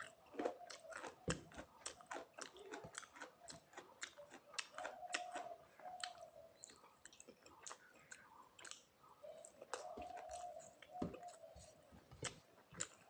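A person chewing food with the mouth making many quick, wet clicks and smacks, and now and then a soft crunch.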